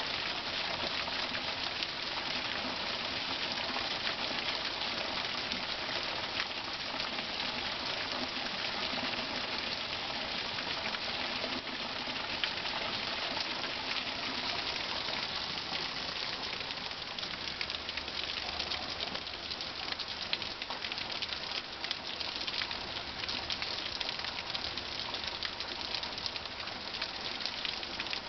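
Heavy rain falling steadily, with a stream of runoff pouring off the roof edge and splashing into a bucket.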